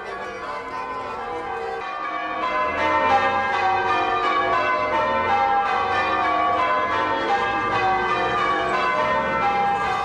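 Church bells of St Mary's Parish Church ringing changes: several bells struck one after another in falling rows. The ringing grows louder about two and a half seconds in.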